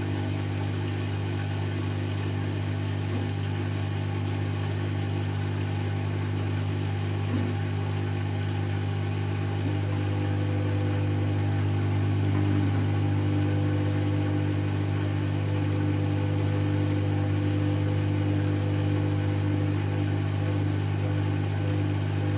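Servis Automatic M3008B washing machine in its final 800 rpm spin: a steady motor and drum hum, growing a little louder with a higher tone joining about ten seconds in.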